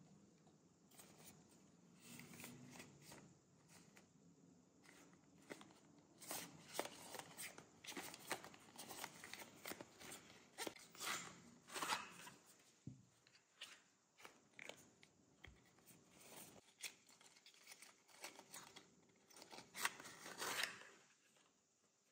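Packaging being handled and unwrapped at close range: crinkling and rustling with many small clicks and taps as the solid perfume sticks are taken out and picked up. It goes quiet near the end.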